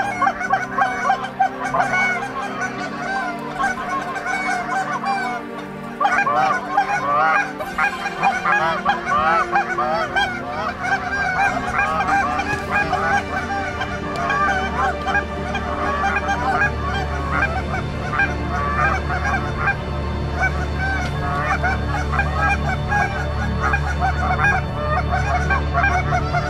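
Huge flocks of snow geese calling overhead: a dense, continuous chorus of many overlapping high yelps and honks.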